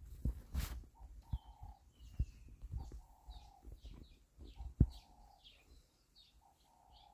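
Birds calling: a dove cooing in short low phrases repeated every second or two, with a falling higher call and quick chirps from smaller birds. A few soft knocks, and one sharp knock about five seconds in, the loudest sound.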